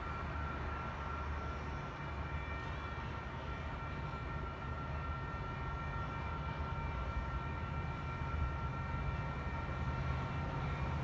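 Distant train approaching, its diesel locomotive giving a low rumble that grows slightly louder toward the end.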